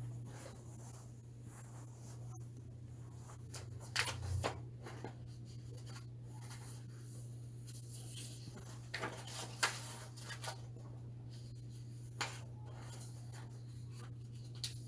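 A few short, faint rustling and scratching sounds, like paper being handled, about 4 seconds in, a cluster between 9 and 10.5 seconds, and once more near 12 seconds, over a steady low electrical hum.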